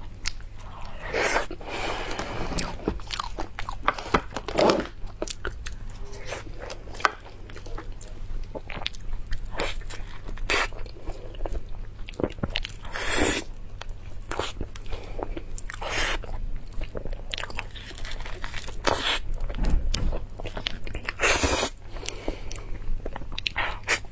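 Musang King durian being eaten: chewing and sticky, wet mouth sounds with many sharp clicks, while the soft pulp is pulled apart in gloved hands.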